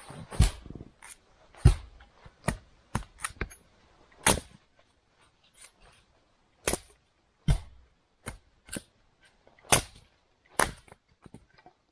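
Firewood being chopped with an axe: a dozen or so sharp, irregular strikes, some much louder than others, with short pauses between them.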